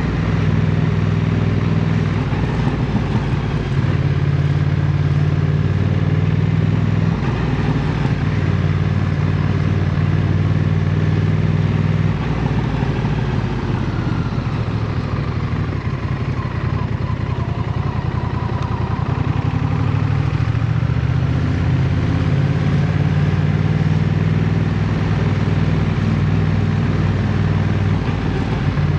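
Honda CMX1100 Rebel's 1,084 cc parallel-twin engine running at low, steady revs while riding. The engine note shifts up or down every few seconds as the speed changes.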